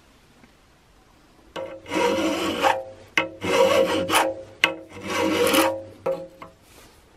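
Three rough rasping strokes, each about a second long, with short gaps between them.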